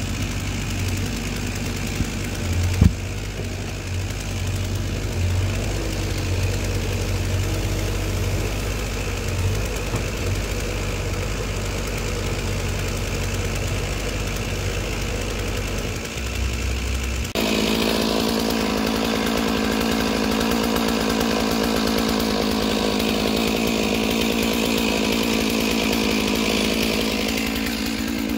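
Bobcat E35 mini excavator's diesel engine running as it handles a heavy locust log, with one sharp knock about three seconds in. About two-thirds of the way through, the sound switches abruptly to a chainsaw idling steadily.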